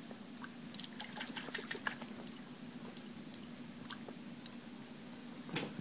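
Kitten's paws and claws tapping on a tablet's glass screen: a flurry of light, irregular clicks, with a louder tap near the end, over a steady low hum.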